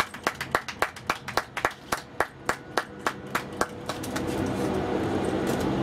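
A small group of people clapping in a steady rhythm, about four claps a second, dying away about four seconds in as music fades in.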